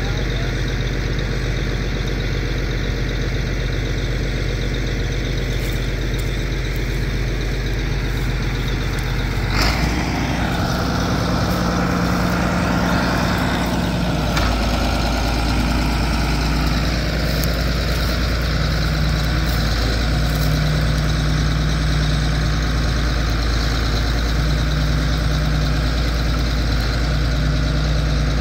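John Deere 8640 four-wheel-drive tractor's turbocharged six-cylinder diesel running steadily while pulling a seven-bottom moldboard plow. About ten seconds in, the engine note changes abruptly and wavers for several seconds as the tractor passes close by, then settles back into a steady drone.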